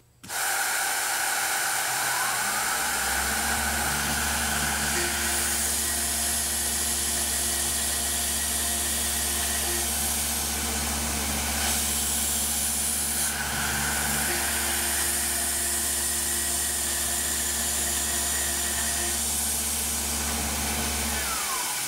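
Tormach PCNC 1100 CNC mill slotting 6061 aluminum with a quarter-inch four-flute roughing end mill at 5,100 RPM and 35 inches a minute: a steady machining drone with the hiss of high-pressure coolant spray. A higher cutting tone comes in twice for several seconds at a time.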